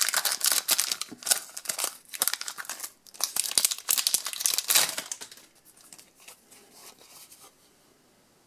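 Dense crackling, crinkling rustles of hands handling trading cards and their packaging right against the microphone, dying away after about five seconds.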